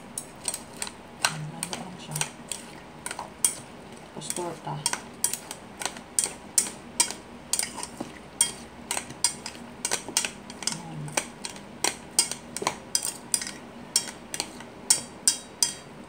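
A utensil stirring a wet egg batter in a stainless steel bowl, clinking against the metal sides two or three times a second.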